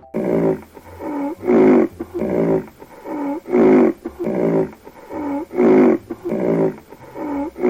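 Rhinoceros snorting and huffing in a steady rhythm, about one call a second, a weaker grunt alternating with a louder one.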